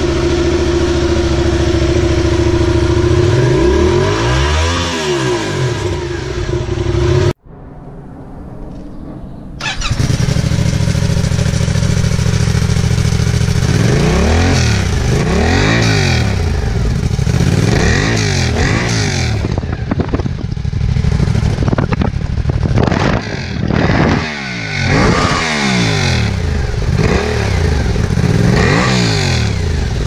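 Yamaha XSR700's parallel-twin engine idling through aftermarket exhausts, with one throttle rev about four seconds in. After an abrupt cut and a brief quieter stretch, it idles again through a LeoVince silencer, with a string of quick throttle blips in the second half.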